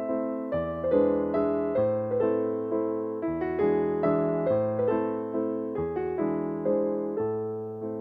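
Background piano music: soft chords struck about every second and a half, each fading before the next.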